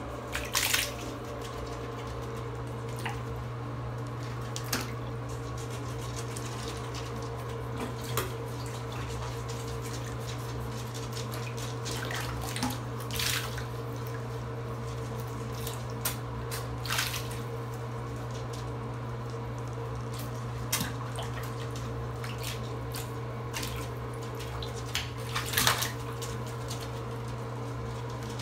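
Small splashes and drips of guinea pigs moving about in shallow bathwater, about a dozen short separate splashes with a few louder ones, over a steady background hum.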